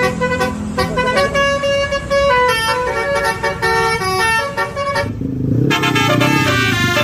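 Telolet bus horn, the Basuri-style multi-tone horn, playing a quick tune of short stepped notes. About five seconds in the tune gives way to a lower, noisier sound.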